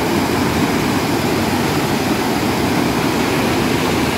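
Shallow mountain stream rushing and splashing over boulders: a steady, loud rush of white water.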